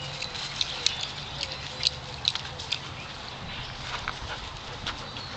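A pack of dogs milling about, with scattered sharp clicks and ticks.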